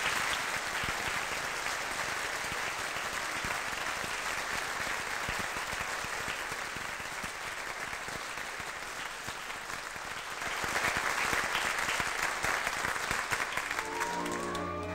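Audience applauding, swelling a little after ten seconds. Near the end the applause dies away as the orchestra begins to play.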